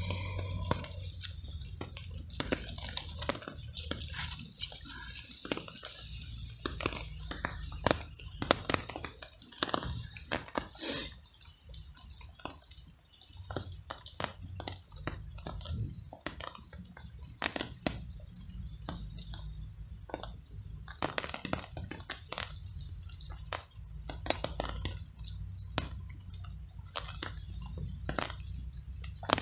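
A tabby cat chewing pieces of cooked veal: quick, irregular chewing and biting clicks, with a steady low rumble underneath.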